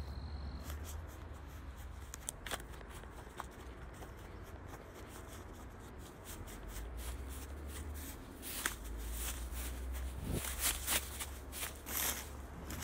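Footsteps through dry grass and brush, with crackling rustles of stems and branches brushing past. The crackles grow busier and louder in the last few seconds, over a low rumble.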